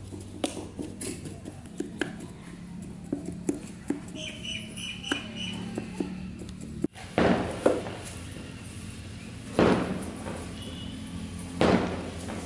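Hand work on firecracker tubes: many light clicks and taps of paper tubes and a small metal rod. After an abrupt change about seven seconds in, a louder scratchy swish comes about every two seconds.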